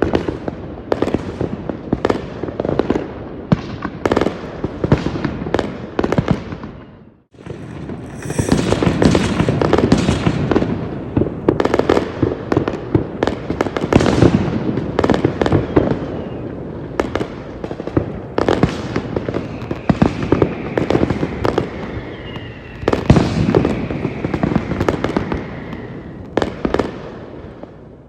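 New Year's fireworks going off densely: many overlapping bangs and crackling bursts. The sound cuts out abruptly about seven seconds in and comes straight back, and a faint high whistle holds and slowly falls in the second half before the sound fades near the end.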